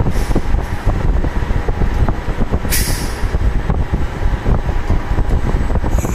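CNC roll-up door spring machine running: a dense, steady mechanical clatter of many small clicks and knocks, with a short hiss about three seconds in and another at the end.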